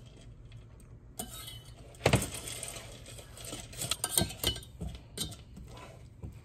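Metal wire whisk clinking and scraping against a small stainless steel saucepan while stirring chunks of butter and chocolate chips, in irregular taps with a louder knock about two seconds in.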